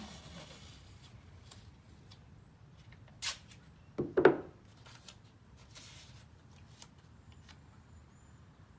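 Adhesive tape being pulled off the roll and torn, with two short rips about three and four seconds in, the second the loudest, amid faint rustling and a few small handling clicks as the tape is pressed down.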